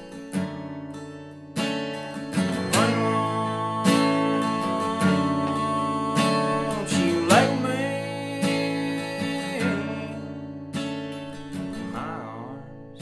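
Cutaway acoustic guitar strummed in a slow, steady rhythm, with a man singing along and holding long notes.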